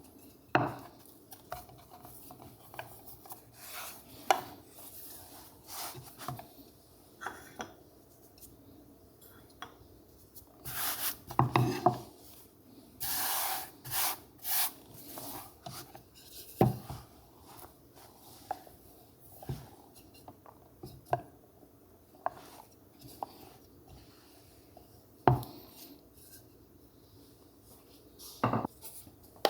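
Kitchen prep sounds: utensils knocking and scraping against a bowl and work surface. Scattered sharp taps run throughout, with a run of longer scraping strokes about eleven to fifteen seconds in.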